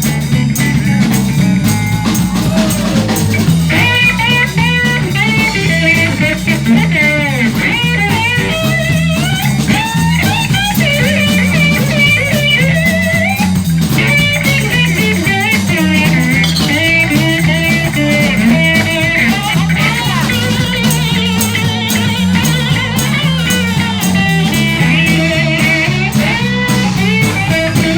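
Live blues band playing an instrumental break: a lead guitar with bent notes over a repeating bass line and drum kit.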